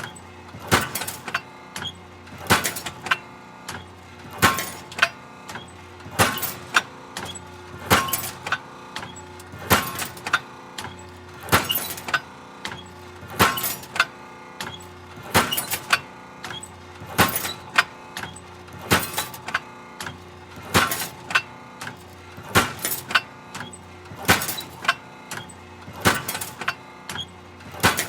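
Hydraulic metal shear cycling through cuts: a loud metallic bang with a short rattle about every two seconds, over a steady mechanical hum.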